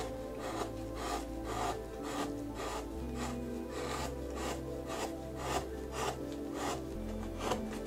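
Hand gouge paring white pine: short scraping cuts repeating about two or three times a second as shavings are lifted, with soft background music underneath.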